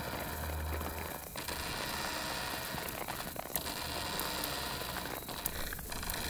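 Live experimental electronic music: a dense, grainy noise texture with a low hum in the first second, dropping out briefly about every two seconds.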